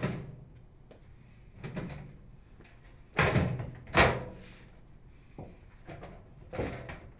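Sheet-metal outer cover of a microwave oven being fitted onto the cabinet: a string of metal knocks and rattles, the loudest two a little after three seconds and at four seconds in.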